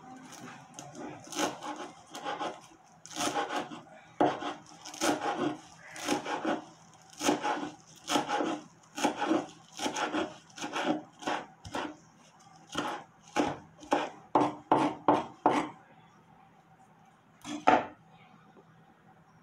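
Large kitchen knife chopping fresh coriander on a wooden cutting board: a steady run of chops, about two a second, coming faster for a moment near the end, then stopping, with one more chop a couple of seconds later.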